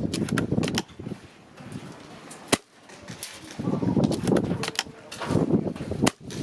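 Tokyo Marui VSR-ONE spring-powered airsoft bolt-action rifle: one sharp shot about two and a half seconds in and another sharp crack near the end, with a few light clicks. Strong gusty wind buffets the microphone throughout.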